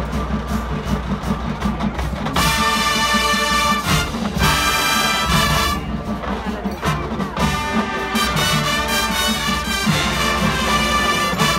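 Marching band playing: a steady percussion pulse runs underneath, and full brass chords come in about two seconds in, break off briefly twice, then return and hold through the end.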